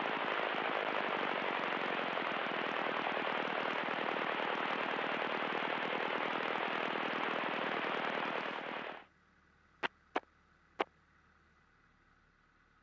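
Steady rushing in-flight cockpit noise of a Piper PA-11 Cub Special, engine and airflow, thin and band-limited as if picked up through the headset intercom. It cuts off abruptly about nine seconds in, followed by three short clicks.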